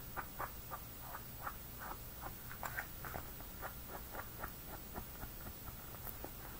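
Paper edges being distressed with a small hand tool: quick, scratchy scraping strokes, about three a second.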